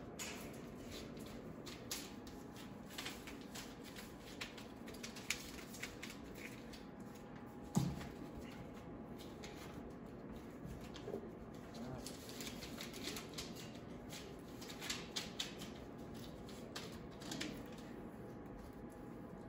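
Australian Labradoodle puppies, four weeks old, moving about on newspaper and bedding: scattered rustling and crinkling of paper with small clicks and scuffs, and a single thump about eight seconds in.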